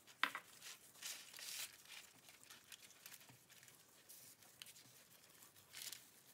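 Faint rustling and crinkling of parchment paper and a thin plastic glove as a hand rubs spice paste over a whole fish, with a few small clicks.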